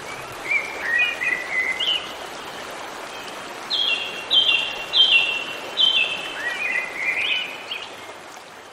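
Birdsong over a steady background of running water: scattered chirps, then four quick descending chirped phrases in a row in the middle, with the whole soundscape fading out near the end.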